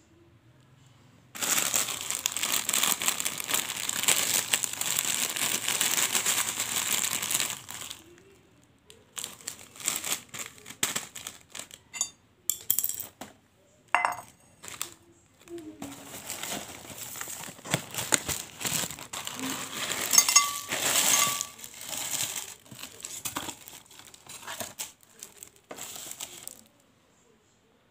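Plastic candy packaging and cellophane candy wrappers crinkling as they are handled by hand. The crinkling is dense and continuous for about six seconds near the start, then comes in scattered rustles and clicks, with a ringing clink from the ceramic bowl about halfway.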